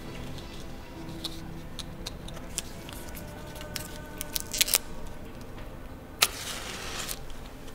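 A cigarette lighter being handled and struck. First come a run of small clicks. Then, a little after six seconds in, a sharp click is followed by a short hiss of about a second.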